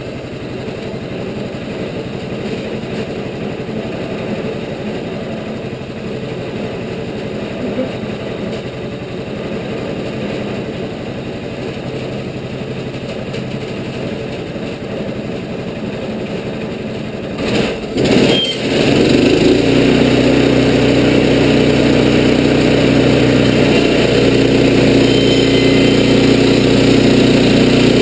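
Wood-Mizer LT15 bandsaw mill's gasoline engine running at a low idle. About 18 seconds in, it is throttled up with a brief clatter and then runs louder and steady at cutting speed.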